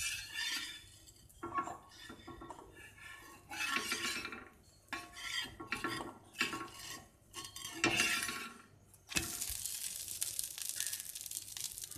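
Irregular clinks and scrapes of metal kitchen utensils, then from about nine seconds in a steady sizzle of a dosa frying on a hot kal dosa tawa.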